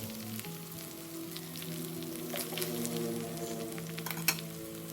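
Cornflour-coated chicken pieces sizzling in hot sunflower oil, a steady hiss with scattered crackles, and a few clicks of a utensil against the pan as the fried pieces are lifted out.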